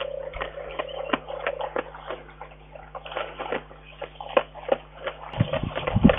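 Brown bear eating from a log, its mouth making irregular clicking, smacking sounds, over a faint steady hum. A louder low rumble comes in about five seconds in.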